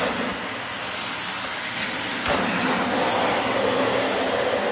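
Dyson vacuum cleaner running with its brush bar switched off, a steady rushing hiss of suction airflow as it picks up dirt; the hiss brightens a little over two seconds in.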